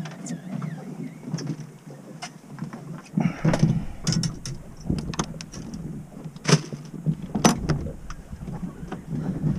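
Scattered sharp knocks and clicks of handling on a fishing boat, over a steady low hum, with a stretch of low rumble in the middle.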